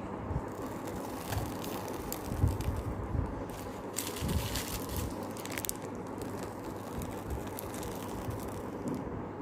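A plastic piping bag being handled and squeezed while icing cupcakes: a few light crinkles and taps over a steady background hiss.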